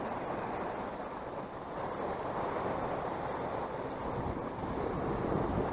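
Sea surf washing and breaking over shoreline rocks: a steady rushing that grows a little louder about halfway through, with wind on the microphone.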